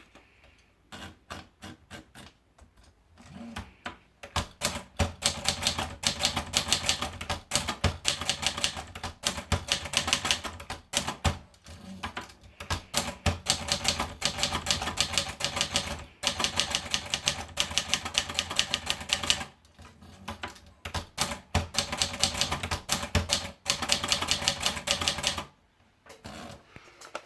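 Adler Tippa S manual portable typewriter being typed on: a few separate keystrokes, then a long run of fast, continuous key strikes with a brief pause partway through, stopping near the end.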